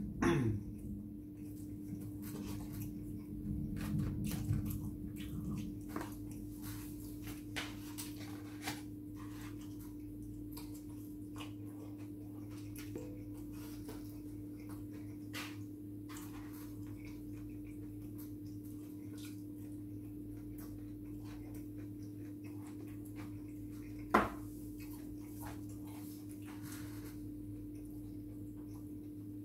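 Mukbang eating sounds: chewing and scattered small clicks of a fork and foam takeaway containers over a steady low hum, with one sharper click about 24 seconds in.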